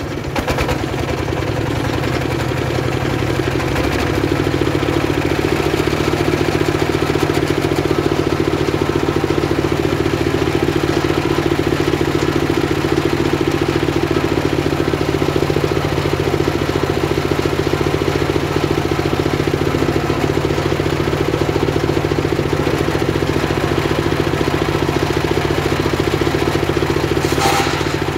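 Engine-driven homemade circular sawmill running steadily as its blade rips a slab of very hard timber. The sound builds over the first few seconds, then holds level, with a couple of sharp knocks near the end.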